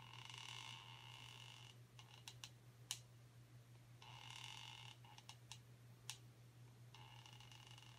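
Near silence with faint handling sounds while petrol is slowly pushed from a plastic syringe into the cotton-packed reservoir of a Soviet GK-1 catalytic hand warmer. There are three short stretches of soft hissing and a few light clicks, over a low steady hum.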